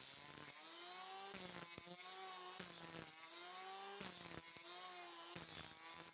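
Wood being sawn in regular strokes, about one every second and a half, each stroke with a ringing tone that dips and rises in pitch.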